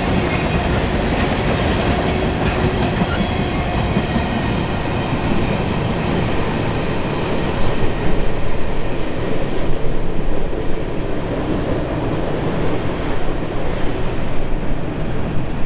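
Loaded covered hopper cars of a freight train rolling past on jointed track, wheels clicking over the rail joints with a faint high wheel squeal. About halfway through the end of the train goes by and the higher wheel sounds thin out, leaving a steady low rumble.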